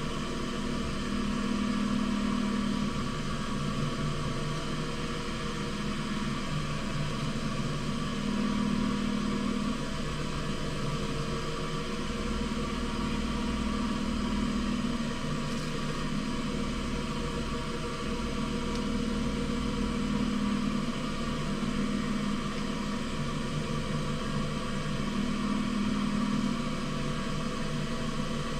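Wood lathe running steadily at low speed, with a low hum that swells and fades every few seconds.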